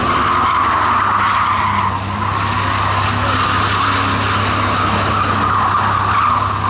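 Car tyres screeching in one long, unbroken squeal as a vehicle spins donuts, with its engine running underneath.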